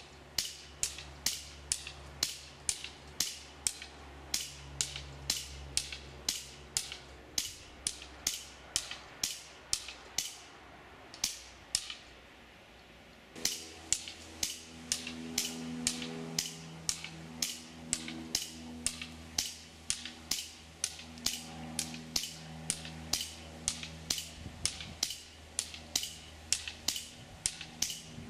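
Remington 1911 RAC CO2 BB pistol firing semi-automatic with blowback: sharp cracks about two a second. About ten seconds in there is a pause of roughly three seconds as the first magazine runs out and the second is loaded.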